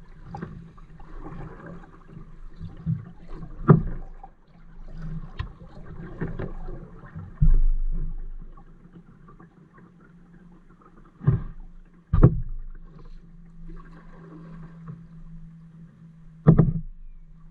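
Kayak paddling on calm water: paddle blades splashing and dripping, with a dull thump and four sharp knocks spread through the stretch.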